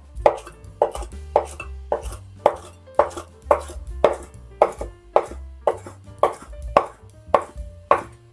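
Kitchen knife chopping soaked wood ear fungus into small bits on a cutting board, with even strokes about two a second.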